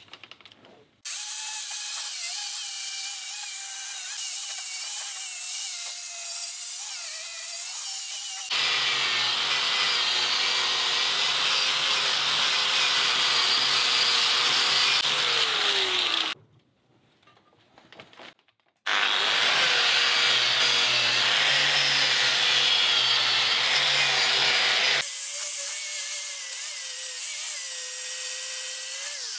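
Angle grinder fitted with a wire wheel, scouring old grease and crud off the gear and handwheel of an antique post drill. It gives a high steady whine that turns into a louder, rougher scrubbing when pressed against the metal. It stops for about two seconds midway, starts again, and eases back to the lighter whine near the end.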